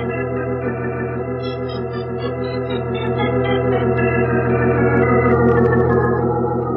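Organ music bridge: sustained wavering chords with a short falling run of high notes about two seconds in, swelling louder towards the end.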